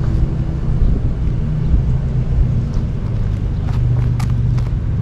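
Steady low rumble of a Class C motorhome's engine idling, with a few short clicks about four seconds in.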